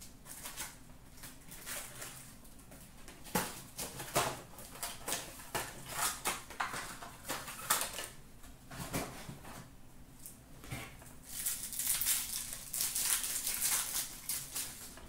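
Foil trading-card pack wrappers, from 2019 Topps Chrome baseball packs, crinkling and tearing as they are opened by hand. The sound is a string of short crackles and rustles, with a longer, denser crinkle near the end.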